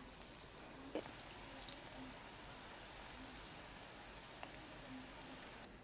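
Faint, steady sizzle of small lentil-and-onion piaju fritters deep-frying in hot oil, with a light pop about a second in and another shortly after.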